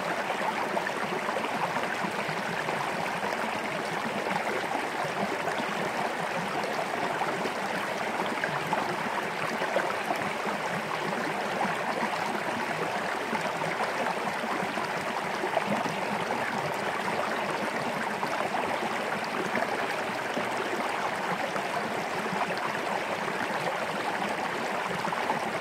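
Small creek flowing: a steady, unbroken burble of running water.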